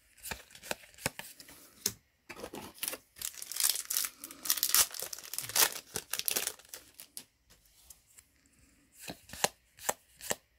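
Trading cards being laid down with light clicks. Then a foil booster-pack wrapper is torn open and crinkled for about four seconds. After that comes a run of crisp snaps as the cards from the pack are flicked through one by one.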